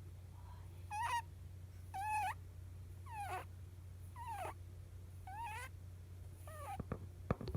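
Pet rabbit squeaking in its sleep: six short, high squeaks about one a second, each bending in pitch, the rare sleep sound taken for snoring. A few sharp clicks near the end.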